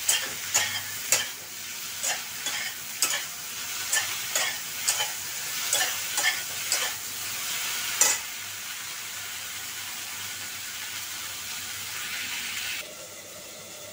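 Chopped okra frying in oil in a steel pan, a steady sizzle, while a spatula stirs it, knocking and scraping against the metal pan a dozen or so times. After about eight seconds the stirring stops and only the sizzle goes on, dropping quieter near the end.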